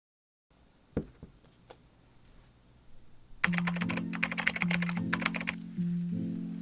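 A single soft thunk about a second in, then background music with a repeating low note pattern begins about halfway through, overlaid for its first two seconds by a fast run of keyboard typing clicks.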